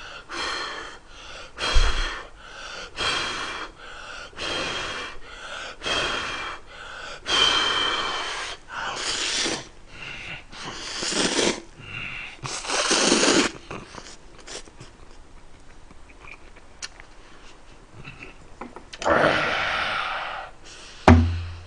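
A man slurping instant cup ramen noodles, a long run of loud slurps about a second apart over the first thirteen seconds. A quieter stretch of chewing follows. Near the end come another long slurp and a thump.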